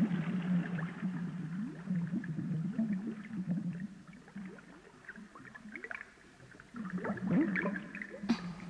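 Animated underwater sound effect: many short rising bubble sounds over a steady low hum, thinning out in the middle and picking up again near the end.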